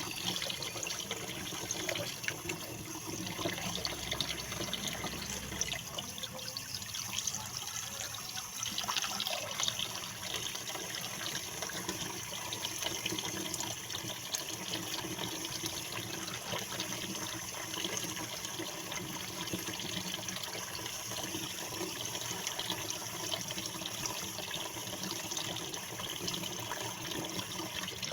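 Tap water running steadily into a sink, with small splashes and clatters.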